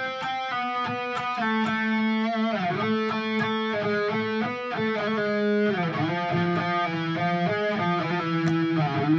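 Eight-string electric guitar playing a prog metal verse melody on a harmonic minor scale in the Phrygian dominant mode: held notes that change every half second or so, with a couple of sliding bends.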